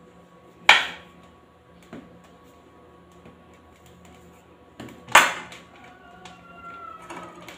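Kitchen knife cutting through half cake dough and knocking on a hard countertop: two sharp knocks, about a second in and about five seconds in, with a few lighter taps between.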